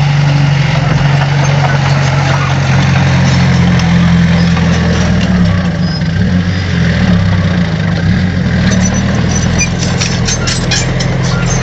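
Heavy diesel engine of an earthmoving machine (bulldozer or excavator) running steadily, its pitch shifting a little partway through. Near the end a rapid run of sharp clicks and knocks sounds over the engine.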